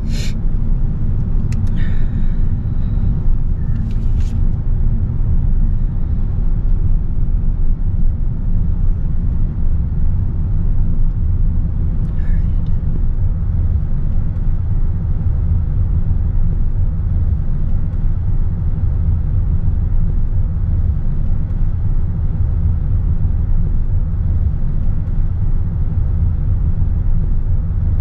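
Car driving along steadily: a constant low rumble of engine and road noise, with a few faint clicks in the first few seconds.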